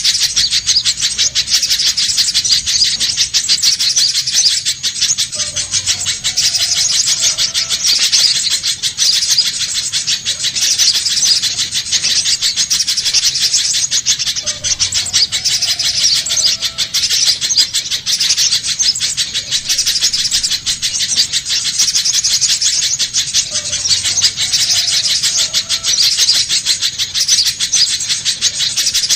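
Little spiderhunter calling: a loud, unbroken stream of very rapid, high chipping notes. The sequence repeats about every nine seconds, as a looped lure recording does.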